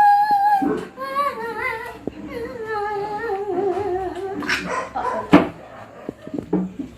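A voice humming a slow, wavering tune of long held notes that drift downward in pitch, ending about four and a half seconds in. A sharp knock comes about five seconds in.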